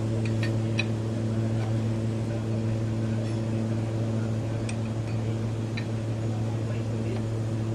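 Steady low machine hum with a few even overtones, unchanging throughout, with a few faint light clicks or taps over it.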